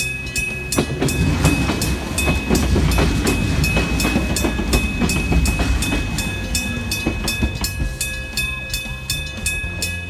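Railway level-crossing alarm bell ringing in a steady rhythm, about two and a half strikes a second; its ring is said to sound like "ichi-chin-chin". Under it a Kumamoto Electric Railway electric train runs through the crossing with a low rumble and clattering wheels, loudest from about one to six seconds in, then fading.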